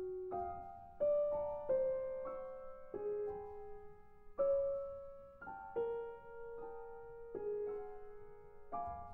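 Solo piano playing slow contemporary classical music: chords and single notes struck one after another, roughly once a second with some longer gaps, each left to ring and fade.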